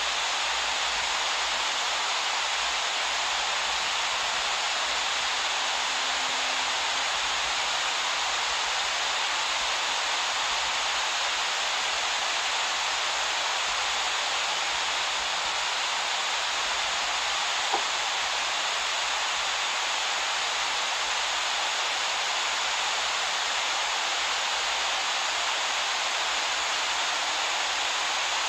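Rushing whitewater of a fast river rapid, a steady dense wash of water noise, with one brief faint click about eighteen seconds in.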